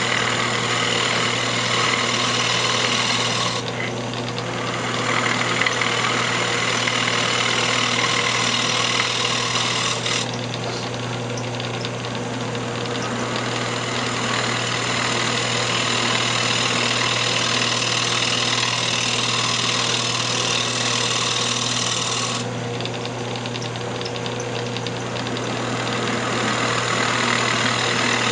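Wood lathe running with a steady hum while a turning tool, rolled up on its side for a shearing cut, cuts the spinning square cherry blank with a harsh cutting noise. The cutting noise eases off twice for several seconds, about 4 s in and again about 22 s in, leaving mostly the lathe hum.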